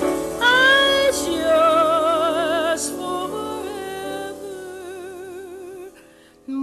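A female jazz singer holds ballad notes with a wide vibrato, with a sliding rise into a note about half a second in, over sustained instrumental backing. The music thins out and nearly drops away near the end, then a new phrase enters.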